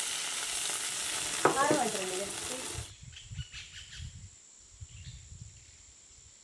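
Hot tempering oil with mustard seeds, shallots and curry leaves sizzling loudly as it is poured into a pan of snail curry. The hiss cuts off about three seconds in, followed by soft scrapes and knocks of a ladle stirring the curry. A brief high call sounds about a second and a half in.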